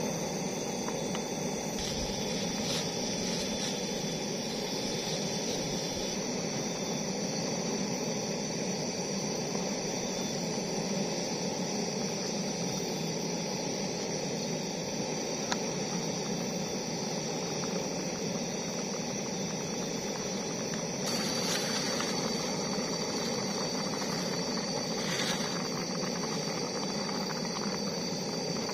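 Steady hiss of a portable gas camping stove burning under a small aluminium pot of simmering seblak broth, with faint high steady tones above it.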